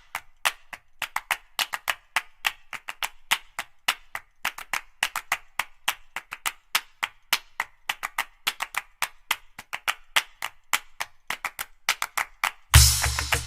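Quick rhythmic clapping-like percussion, about five sharp claps a second. Near the end a full music track with a heavy bass beat comes in.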